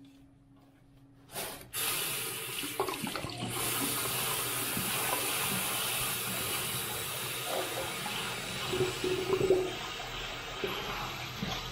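Bathroom sink tap running into a metal mesh strainer, the water splashing over pickled mustard greens as they are rinsed and squeezed by hand. The tap's steady rush starts about two seconds in.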